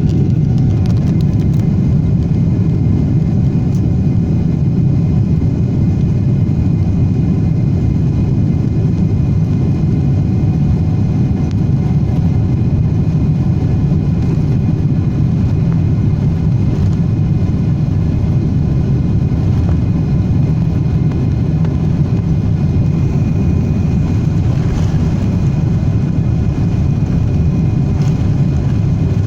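Boeing 777-300ER's GE90 turbofan jet engines running for takeoff: a steady, loud low rumble with faint whining tones above it.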